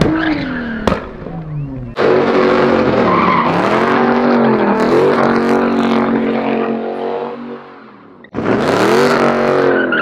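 A car engine revving hard, its pitch sweeping up and down and then held high, over tyre squeal as in drifting. The sound cuts in suddenly about two seconds in, dies away, and cuts in again near the end.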